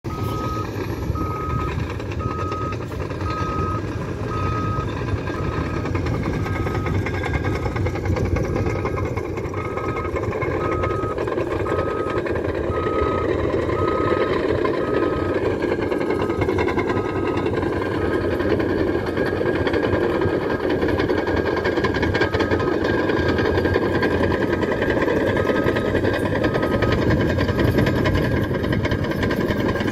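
Caterpillar D5 crawler dozer's diesel engine running steadily under load while levelling the ground, with its back-up alarm beeping about once a second.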